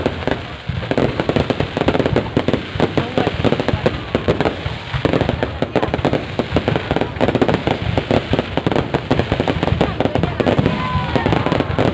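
Fireworks display: a dense, continuous barrage of bangs and crackles, with a short whistling glide near the end.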